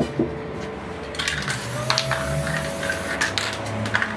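Spray paint can hissing in short bursts, with metallic clicks and clinks.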